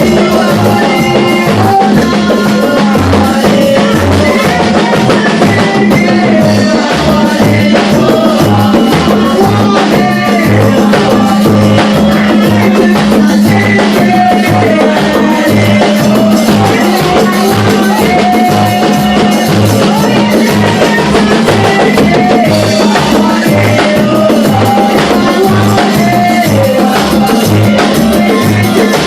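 Church music with a drum kit keeping a steady, regular beat, wavering melody lines over it, and a constant low drone underneath.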